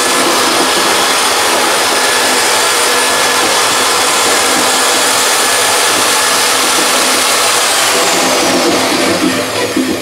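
Corded electric rotary hammer running at speed, driving a homemade apple crusher as it grinds apples into pulp. A steady motor and grinding noise that turns uneven near the end.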